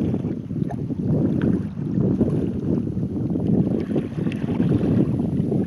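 Wind buffeting the microphone in a fluctuating low rumble, over water lapping against a kayak's hull, with a few faint small splashes.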